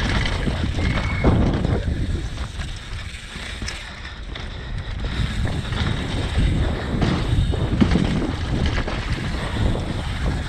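Downhill mountain bike ridden fast on a dirt trail: wind buffeting the microphone over the continual rattle and knocks of the bike and its tyres on the ground.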